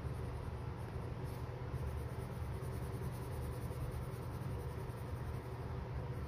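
Deli watercolour coloured pencil scratching back and forth on paper as it shades in colour, over a low steady rumble.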